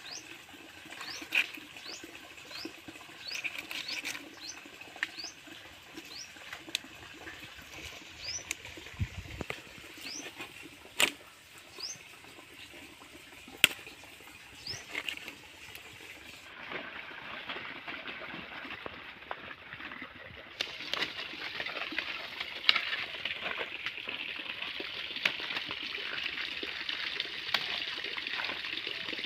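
Short, high, rising chirps of small birds repeat over outdoor ambience, with a few sharp clicks and knocks. About two-thirds of the way through the sound changes to a steady rustling hiss.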